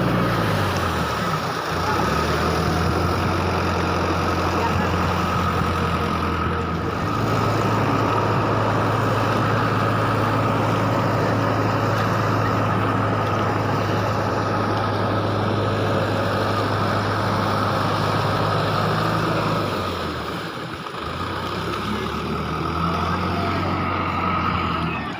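An engine running steadily, its low hum shifting pitch in steps: it drops about a second in, rises around seven seconds, drops around twenty seconds and rises again near the end. A steady high whine runs alongside it.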